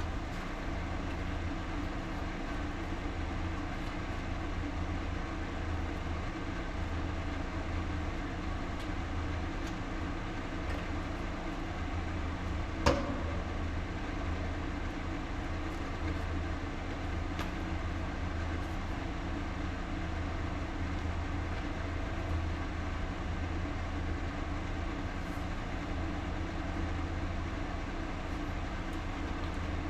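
A steady low mechanical hum runs throughout, broken once about 13 seconds in by a single sharp report, typical of a .22 LR rifle shot being fired over a chronograph.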